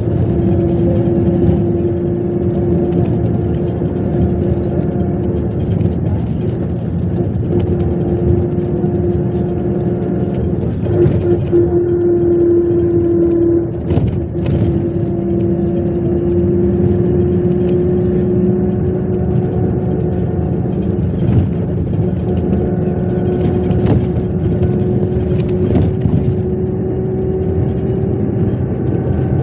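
Inside a MAZ 103.562 city bus on the move: steady engine and road noise with a clear whine running through it. The whine breaks off briefly about halfway through, then returns and slowly rises in pitch.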